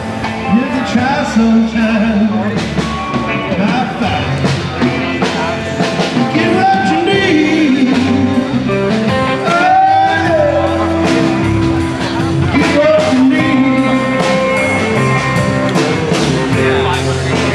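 Background music: a rock or blues song with guitar, a steady beat and a sung vocal.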